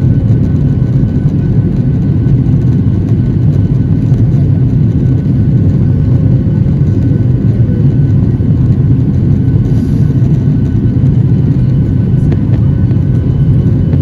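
Boeing 737-700 cabin noise in flight, heard at a window seat over the wing: a steady, deep rumble of the CFM56-7B turbofans and rushing air, with a faint steady whine above it.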